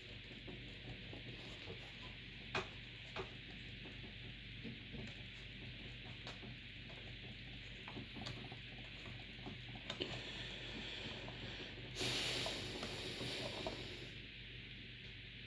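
Quiet handling noise from working with computer parts: a few light clicks and taps, and a louder stretch of rustling about twelve seconds in, over a faint steady hiss.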